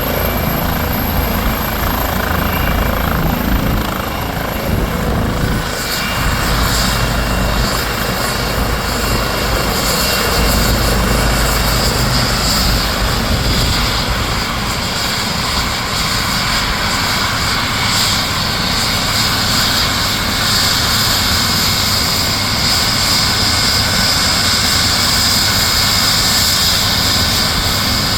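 Air rescue helicopter's turbine engines and rotor running at close range, a steady loud rush with a high turbine whine that grows stronger about six seconds in.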